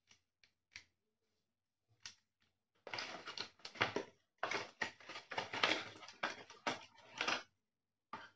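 Cardboard packaging being handled and pulled about: a few light clicks, then several seconds of dense rustling and scraping of the cardboard insert, and one more click near the end.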